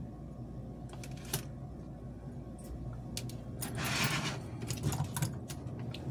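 Light clicks and taps of small metal parts and tools being handled while soldering on a toy train locomotive chassis, over a steady low hum, with a brief hiss about four seconds in. The clicks come thicker toward the end.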